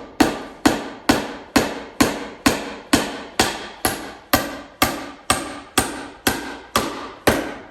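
Hammer driving cement-coated sinker nails into rough-cut hardwood: a steady run of sharp strikes, about two a second, each with a short ring.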